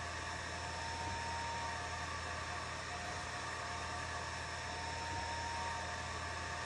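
Atomstack A10 Pro laser engraver running a job: the steady whir of its cooling fan, with a faint high motor whine that comes and goes twice as the head moves.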